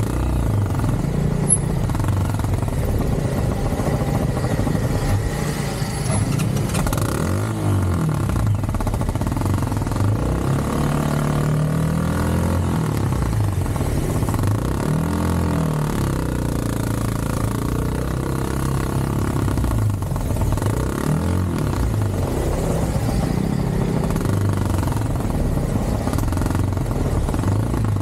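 Motorcycle engine running in slow stop-and-go city traffic, its pitch repeatedly rising and falling, with other traffic around it.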